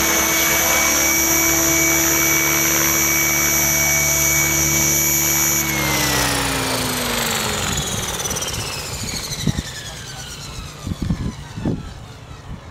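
Align T-Rex 600E electric RC helicopter's motor and main rotor running at a steady speed, then about six seconds in the whine falls away steadily in pitch as the motor is cut after landing and the rotor spins down. A few sharp knocks near the end.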